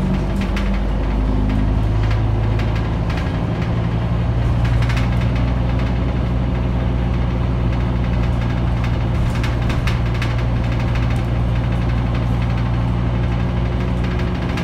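Scania K310UB bus's 9-litre five-cylinder diesel engine running, heard inside the passenger saloon. Its low hum steps up in pitch over the first couple of seconds, then holds steady, with a few light rattles.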